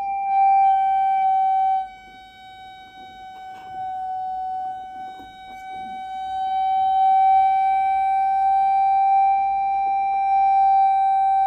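Steady electronic tone from a signal generator, played through the speaker on a resonance tube closed by a plunger. Its pitch settles slightly at first and then holds. The tone drops sharply in loudness about two seconds in and swells back up from about six seconds, staying loud near the end: the tube is coming to a resonant maximum as the generator is adjusted.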